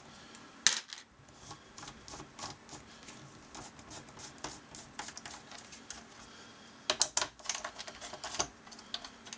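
Small screws being unscrewed with a hand driver from the logic board of a 1984 Corvette digital instrument cluster: a run of light metal-on-plastic clicks and scrapes, with a denser flurry of clicks about seven seconds in.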